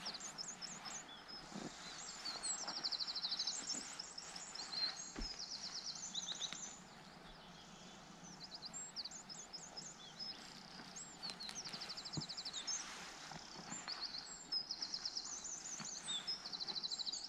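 A songbird singing: phrases of rapid, high chirps and trills, repeated every few seconds, over a steady hiss of outdoor background noise.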